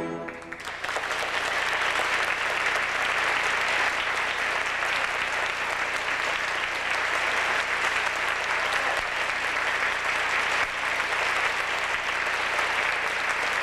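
Audience applauding steadily, rising in just after a last orchestral chord cuts off.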